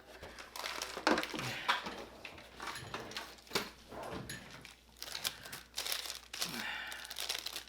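Packaging crinkling and rustling in irregular bursts, with scattered sharp crackles and light knocks, as cable cutters are worked out of their wrapping.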